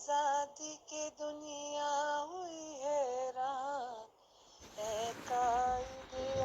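A solo voice singing a patriotic song (tarana) with an ornamented, wavering melody. The singing breaks off briefly about four seconds in, then comes back with a rougher, noisier sound underneath.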